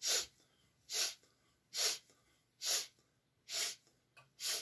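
A man doing Strelnikova breathing gymnastics: six short, sharp, noisy sniffs in through the nose, evenly spaced a bit under one a second, with quiet passive exhales between.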